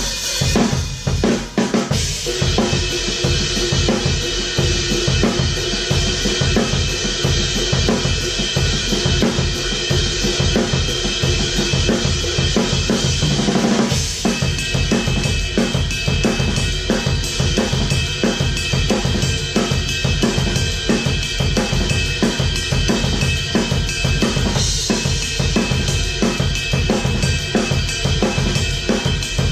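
Acoustic rock drum kit with Meinl cymbals played hard in a steady, driving beat of bass drum, snare and cymbals. The pattern changes about 14 seconds in.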